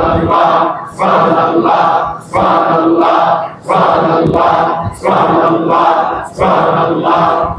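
A congregation of men chanting a Sufi dhikr in unison, one short phrase repeated rhythmically about once every 1.3 seconds.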